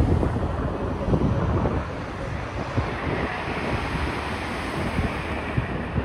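Wind buffeting the microphone: a steady rushing noise with a heavy low rumble and uneven gusts.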